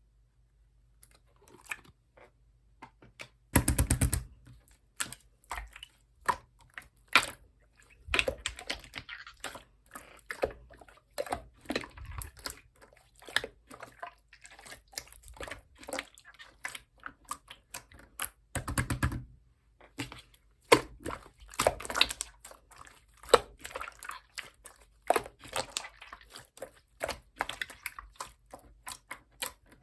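Slime being squished and worked by hand, making quick irregular crackling clicks and small pops, with a couple of louder squelching bursts.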